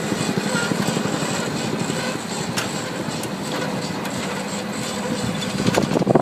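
A machine running steadily with a dense mechanical noise. Several louder, uneven surges come near the end.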